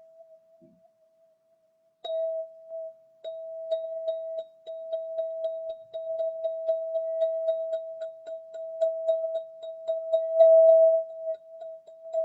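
Golden ZenTube chime ringing one steady pitch, struck again about two seconds in, then tapped rapidly and evenly, about three or four strikes a second, so the tone keeps sounding and swells near the end.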